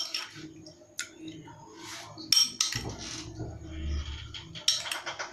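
A spoon clinking and scraping against a cut-glass bowl while spooning soft jelly over cake slices: a few sharp clinks, two close together near the end, with softer scraping and squishing between them.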